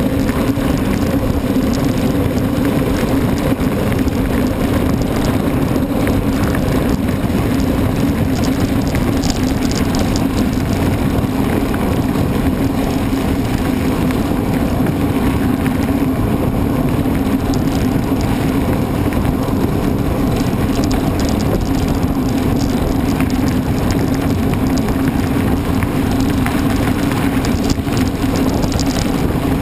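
A mountain bike being ridden, heard close up: a steady, loud rumble of rolling tyres and wind noise that runs without a break.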